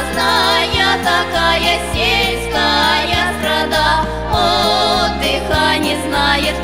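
Background music: a song with a bass line that steps through chords and a wavering lead melody.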